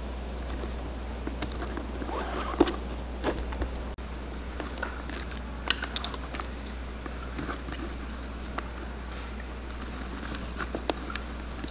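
New laces being threaded through a leather boot's metal eyelets and pulled snug: faint rustling and scattered light clicks, with a sharper tap about two and a half seconds in. A steady low hum runs underneath.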